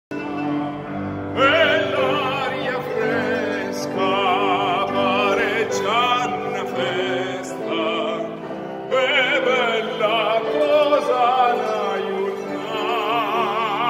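Operatic tenor singing long notes with strong vibrato over an accompaniment of piano, cello and mandolin; the instruments play alone for about the first second and a half before the voice comes in.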